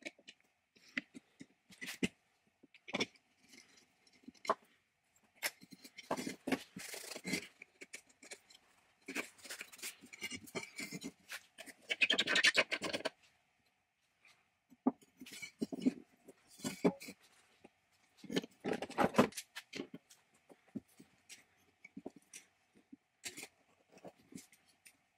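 Irregular clicks, scrapes and rubbing of hand work on a steel plate: pliers gripping and turning a rusty threaded stud and small metal parts being handled, with two louder scrapes about halfway and three-quarters through, and a rag rubbing the plate near the end.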